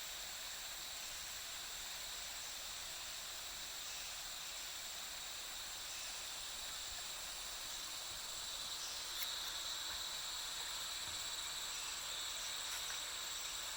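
Rainforest insect chorus: several steady high-pitched tones held over an even hiss, with a single brief tick about nine seconds in.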